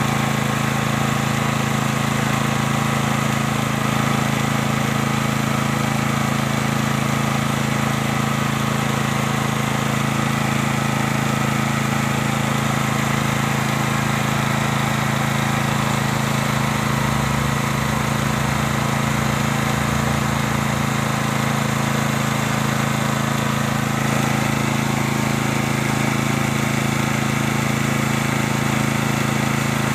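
FTG 7700E petrol generator's 13.5 hp engine running at a steady speed, an even, unchanging hum.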